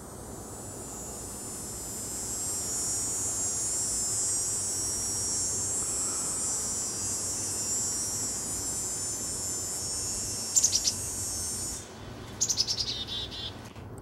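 A high, steady insect buzz swells over the first few seconds and stops suddenly near the end. Just before and after it stops, a small bird gives a few quick chirps and then a rapid run of sharp notes.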